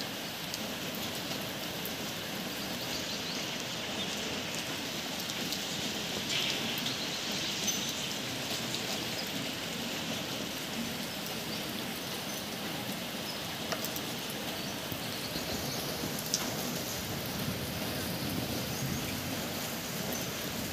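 Steady rain falling, with a few sharper drop hits close by.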